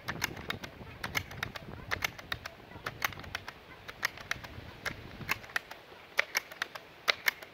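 Seneca Dragonfly Mk2 multi-pump air rifle being pumped up toward 15 strokes: the low whooshing pump strokes stop about five seconds in. Sharp clicks come and go throughout.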